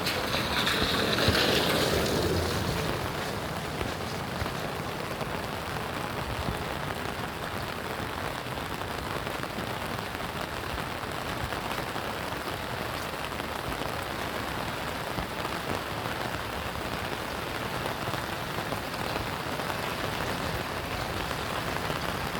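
Steady rain falling, heard as a dense even patter. A louder rushing noise swells and fades away in the first two or three seconds.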